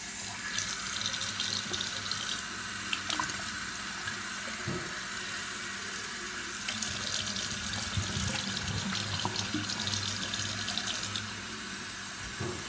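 Bathroom sink faucet turned on suddenly and running steadily, its stream pouring into an aluminium drink can to rinse it out.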